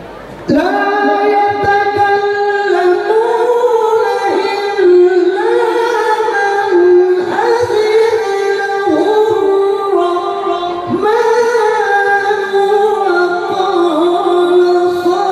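A male qori's melodic Quran recitation (tilawah), amplified through a microphone: long held notes with ornamented turns and slides in pitch, starting about half a second in.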